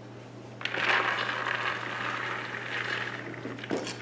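Soaked, drained mixed beans sliding out of a plastic bowl and pouring into a slow cooker, a steady rushing rattle that starts about half a second in and tapers near the end, followed by a couple of knocks.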